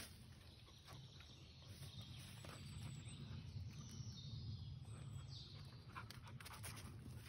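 Quiet woodland ambience: a steady low rumble, a few soft footsteps on a dirt forest track, and faint bird chirps twice.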